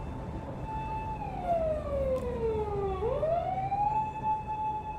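Ambulance siren wailing. It holds a high note, slides down for about two seconds, then sweeps quickly back up about three seconds in and holds high again.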